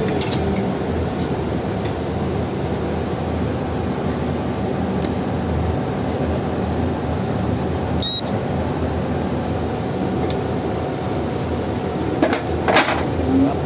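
Steady mechanical hum with hiss, with a sharp click about eight seconds in and a few clicks and knocks near the end.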